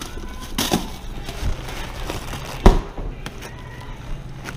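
Handling knocks and thumps as a bag of ice is fetched from a store ice freezer and carried off, the loudest a single sharp thud about two and a half seconds in, over a steady low hum.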